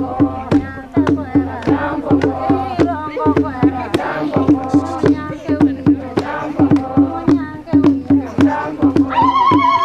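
Warangi traditional ngoma song: a group singing over a steady percussive beat of about three strikes a second. About nine seconds in, a high warbling held note joins.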